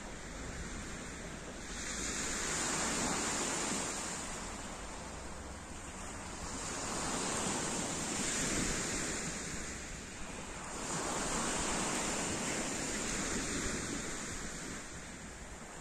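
Small sea waves breaking and washing up a pebble beach, in three slow surges that each swell and fade over about four seconds.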